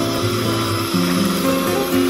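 Calm background music of slow, held notes that change every half second or so, over a steady rush of bubbling bath water.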